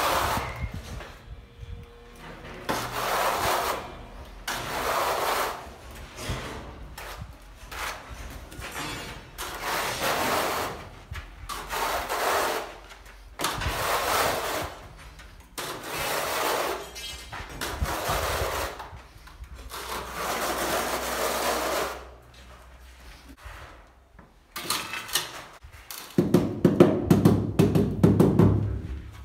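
Notched trowel scraping across tile adhesive on a wall, one long stroke about every two seconds. Near the end, a mallet taps rapidly on a ceramic tile, bedding it into the adhesive.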